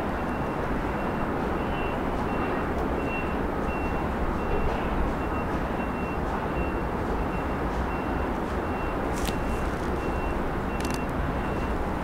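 Subway work train of retired R42 cars running along an elevated structure, a steady rumble of wheels on rail. A high beep repeats about twice a second throughout, like a vehicle's reversing alarm, and a few sharp clicks come near the end.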